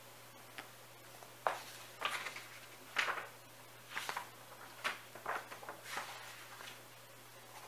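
A string of short scuffs and knocks, about one a second, over a faint steady hum.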